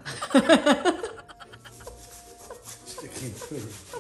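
A man laughing: a loud run of short laughs in the first second, then softer chuckles about three seconds in.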